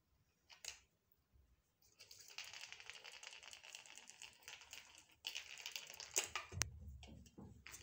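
A kitten chasing a small plastic ball across a hard terrazzo floor: from about two seconds in, a stretch of quick, dense clicking and rattling from the rolling ball and the kitten's claws. Near the end come a few louder clicks and a short low rumble.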